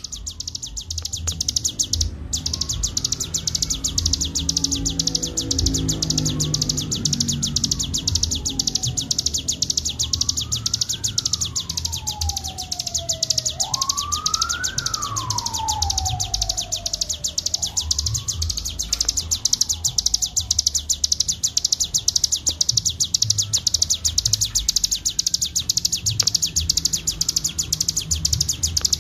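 Cigun songbird singing in the 'ngebren' style: an unbroken, very fast, dry trill held high, overlaid for the first twenty seconds or so by slow whistles that swoop up and down in pitch, over a low background rumble.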